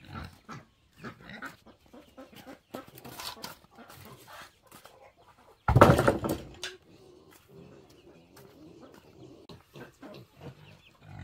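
Farmyard chickens clucking, with one loud, sudden call about halfway through, and a few light knocks.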